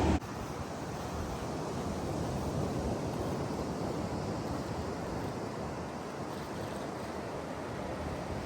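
Ocean surf washing steadily onto a beach, an even rushing noise, after a louder sound cuts off right at the start.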